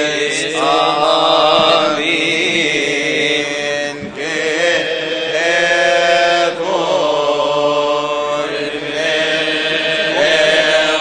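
Coptic Orthodox liturgical chant sung by men's voices: long drawn-out notes that waver and glide in pitch, in a few long phrases with brief breaks between them.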